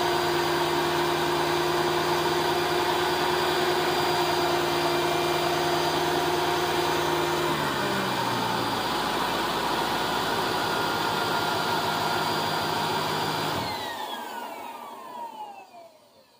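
Mercedes-Benz CL500's M113 5.0 V8 idling, freshly refilled with oil and run briefly to build oil pressure. A little past halfway the engine note drops lower. Near the end the engine is switched off and its whine winds down to quiet.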